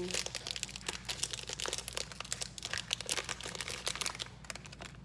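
Packaging of a mystery squishy toy crinkling as it is handled and opened by hand, a dense irregular crackle that thins out about four seconds in.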